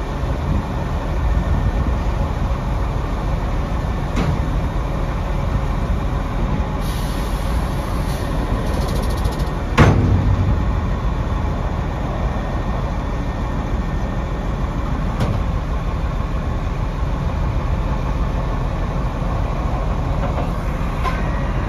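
The Freightliner M2's 285 hp Cummins ISC diesel runs steadily while the Prentice grapple boom is folded down hydraulically. A brief hiss is followed, just under ten seconds in, by one loud metallic clank, with lighter knocks a few seconds before and after.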